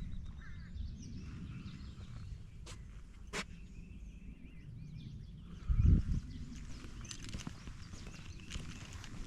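Outdoor ambience: faint bird chirps over a steady low rumble, with two sharp clicks around three seconds in and a loud dull thump about six seconds in.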